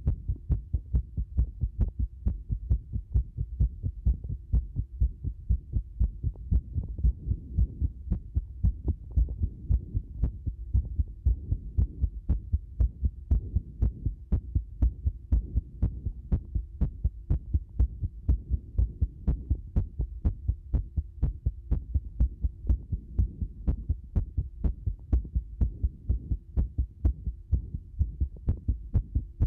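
Human heartbeat recorded close up, a continuous run of low thumps with an irregular rhythm: many disordered beats. A faint steady hum sits underneath.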